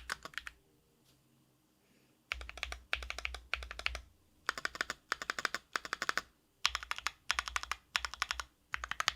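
Typing on a Sakura Studio Fuji 65 mechanical keyboard with an aluminium plate, factory-lubed JWK Night Sakura switches and JTK Night Sakura keycaps. Fast runs of keystrokes come in bursts with short gaps between them, after a brief pause near the start.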